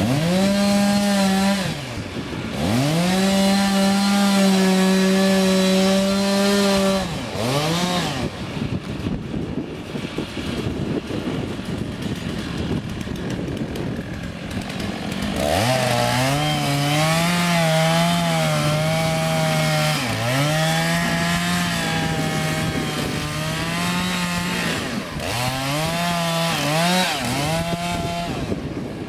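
Chainsaw cutting into a dead elm. The engine revs high in two long bursts, runs quieter for several seconds, then makes a long cut in which its pitch wavers under load, easing off briefly twice.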